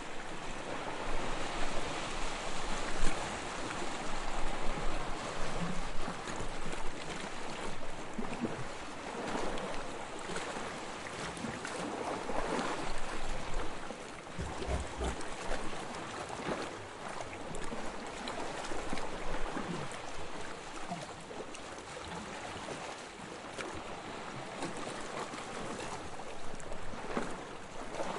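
Sea water lapping and splashing in small, uneven surges, with some wind.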